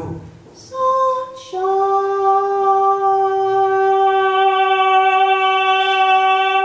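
A woman's voice singing unaccompanied: a short note about a second in, then a long, steady held note.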